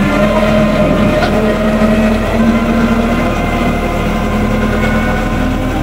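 Komatsu FD100 diesel forklift's engine running, a steady pitched drone that wavers slightly in pitch.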